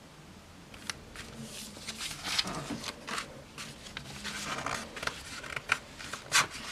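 Glossy magazine pages being handled and turned: paper rustling and flapping, with several crisp snaps of the sheets scattered irregularly.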